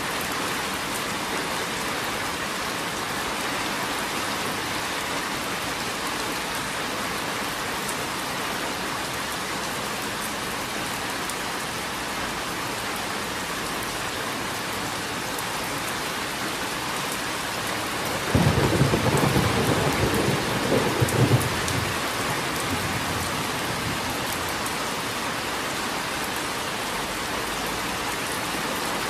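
Steady rain, with a low roll of thunder that breaks in suddenly about two-thirds of the way through and rumbles for about four seconds, peaking again just before it fades.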